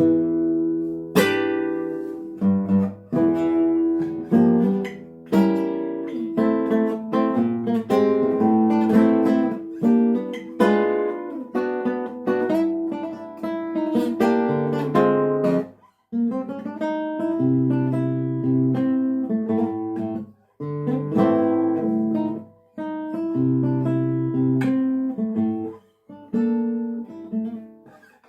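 Solo classical guitar playing a composed piece: agitated runs and plucked chords broken by short pauses, then calmer, reflective phrases.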